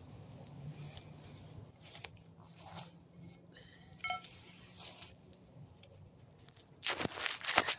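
Rustling and handling noise on a phone's microphone as it is moved about and set low on the ground, loudest in a cluster of rough scrapes near the end. A short electronic-sounding beep comes about four seconds in.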